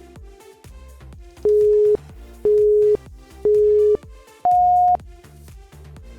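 Workout interval-timer countdown beeps over electronic background music: three identical half-second beeps a second apart, then a fourth, higher beep, marking the switch to the next exercise.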